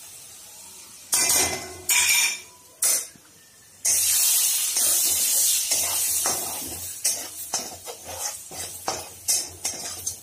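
Metal spoon knocking three times against the kadai as spice powders go into hot oil, then a loud sizzle starting about four seconds in and slowly dying down while a spatula scrapes and taps around the pan, stirring the frying masala.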